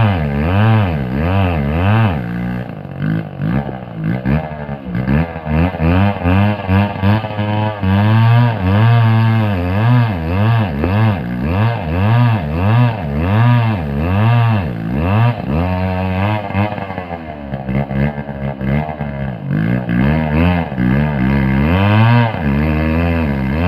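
Chainsaw engine running hard while cutting ulin (Borneo ironwood), its pitch swinging up and down about once a second as it bogs under load and revs back up.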